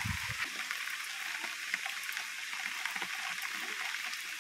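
Heavy rain falling steadily on paved ground and leaves: an even hiss with a dense patter of drops.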